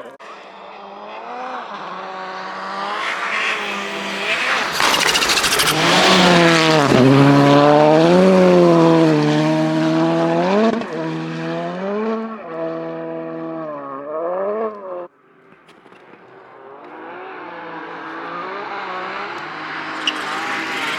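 Rally car passing at speed, its engine revving up and dropping back repeatedly through gear changes, loudest as it goes by about a third of the way in. The sound cuts off suddenly about three quarters through, and a second car is then heard approaching, its engine growing louder.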